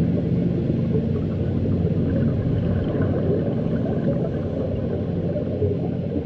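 Underwater sound picked up by a dive camera: a steady, muffled low rumble with a grainy bubbling texture from the divers' exhaled air.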